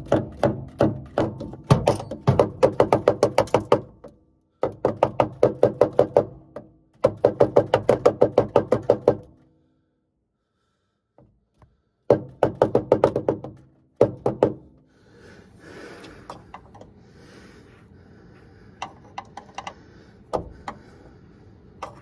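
Screws being driven in to fit a new suspension damper in a Hoover Vision HD washing machine: rapid, even clicking at about six a second, in several bursts of about two seconds. Quieter handling and a few light knocks follow.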